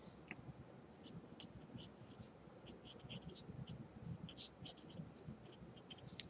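Pen scratching across paper in short, quick strokes as words are handwritten; faint.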